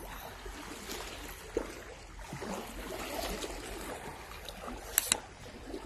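Seawater washing and lapping over the rocks of the shoreline, a soft steady wash, with two sharp clicks in quick succession about five seconds in.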